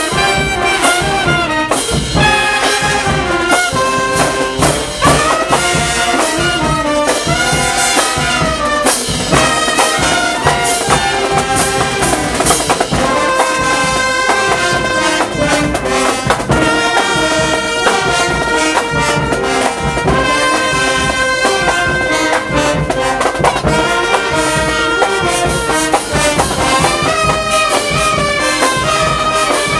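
Filipino marching brass band playing a tune. Trumpets and horns carry the melody in loud, held notes over percussion keeping a steady beat.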